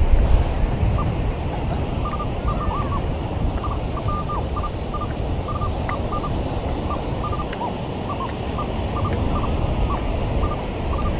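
Minelab Manticore metal detector giving many short, high beeps at irregular spacing, a few of them sliding down in pitch, over a steady rush of surf and wind on the microphone.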